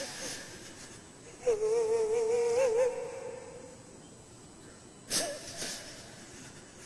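A man's voice breaking down in weeping during Quran recitation: a wavering, held moan from about a second and a half to three seconds in, then a sharp sobbing gasp about five seconds in.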